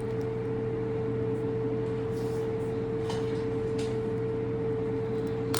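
Steady machine hum with one constant mid-pitched tone, with a few faint light ticks over it.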